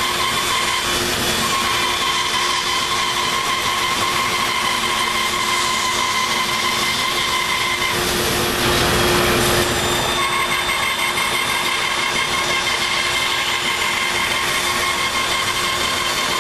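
Bandsaw running with a steady whine while its blade cuts a tenon into the end of a wooden table apron. About eight seconds in, the sound turns rougher and a little louder for roughly two seconds, then settles back to the steady whine.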